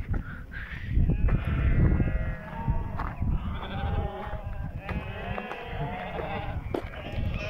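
A flock of sheep bleating, many calls overlapping one another, over a low rumble.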